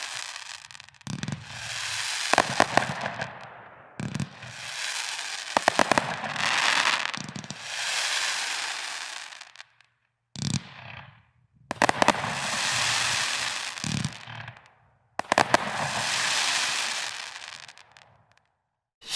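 Kimbolton Apostles Creed 118-shot firework cake firing in volleys. Each volley is a quick run of sharp shots, then a rushing hiss from the bursts that fades over two or three seconds. About five volleys, with brief silent gaps between some of them.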